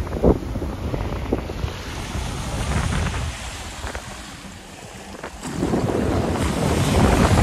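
Small waves washing up on a sandy shore, with wind buffeting the microphone. The surf dips quieter about halfway through and swells again near the end.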